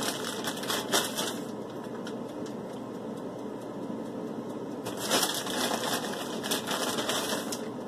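Plastic packaging crinkling and rustling in two spells, in the first second or so and again from about five seconds in, as shredded cheese is taken out and sprinkled onto pizzas.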